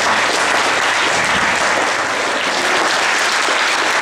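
An audience applauding: many hands clapping at a steady level.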